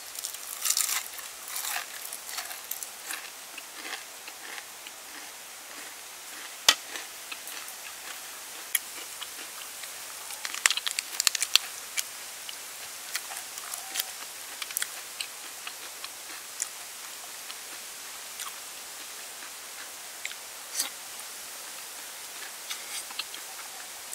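A person biting into and chewing a crispy battered chicken leg. The crunches come in scattered clusters, loudest about a second in and again around eleven seconds, over a steady background hiss.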